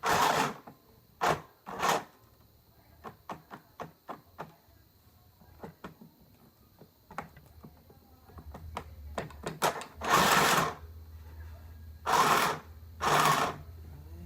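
Mini portable sewing machine being handled: several loud rustles or knocks and a run of small clicks. From about halfway through, its small motor gives a steady low hum.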